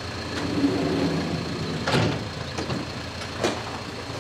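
Ambulance van idling at its open rear doors, with two sharp clunks, about two seconds and three and a half seconds in, as the stretcher is handled in the back.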